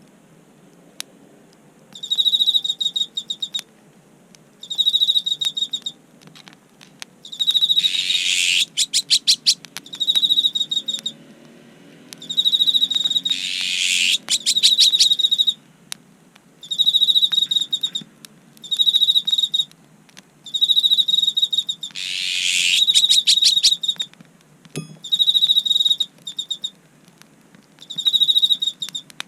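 An insect calling in repeated pulsed, high-pitched chirping trills, each lasting one to three seconds and coming about every two seconds. Occasional sharp crackles and a faint low rumble from the wood fire run underneath.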